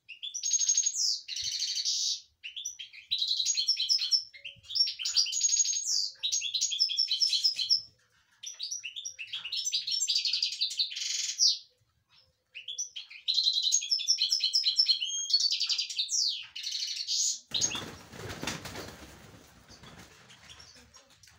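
European goldfinch singing in quick bursts of high twittering notes, with short pauses between phrases. Near the end a rushing noise takes over for about three seconds and fades.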